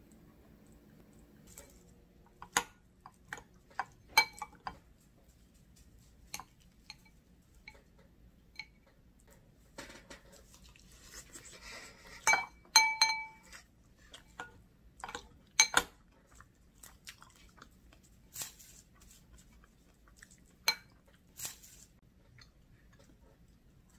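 Metal spoon clinking and scraping against a ceramic bowl while mixing rice. Scattered sharp clinks with a short ring, and a longer stretch of scraping and stirring about halfway through.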